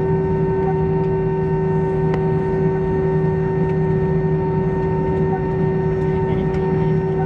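Steady cabin noise of an Airbus A320 taxiing in, its IAE V2527 engines at idle: a constant low drone with a steady higher hum over it.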